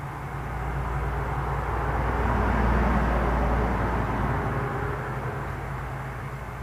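Electric hair clipper buzzing steadily as it trims the short hair at the side of the head above the ear. Under it a low rushing noise swells and fades, loudest about three seconds in.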